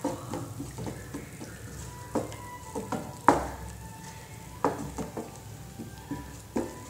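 A spoon stirring onions and sauces in a non-stick frying pan, with a faint sizzle of frying and several sharp knocks and scrapes against the pan. The loudest knock comes about three seconds in.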